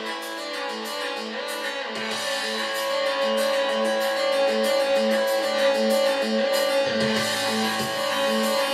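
Guitar-led music played through a pair of CHIFENCHY stereo Bluetooth golf speakers. A low bass part joins about two seconds in and gets fuller about seven seconds in.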